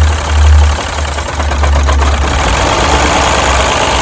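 Four-cylinder Mini engine idling roughly with a bad misfire, running uneven and lumpy. Its second pencil coil is pulled during a coil-by-coil misfire test, so it runs on fewer cylinders and stumbles as if it wants to stall.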